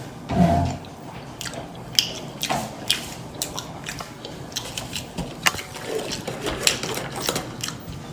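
Loud open-mouthed chewing: a string of irregular wet lip smacks and mouth clicks, with a brief low hum about half a second in.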